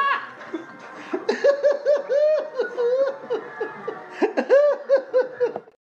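High-pitched laughter in quick runs of short syllables, cutting off abruptly near the end.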